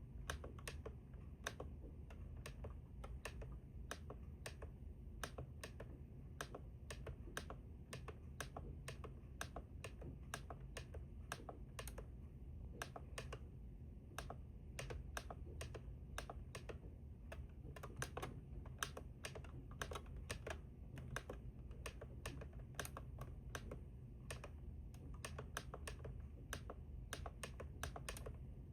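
Buttons on a digital weather radio pressed over and over, a quick run of sharp plastic clicks at about two to four a second, as its menu settings are stepped through.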